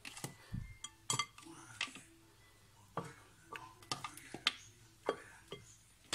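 Raw chicken feet being dropped by hand into a pot, an irregular run of soft knocks and clicks as they land on the pot and on each other.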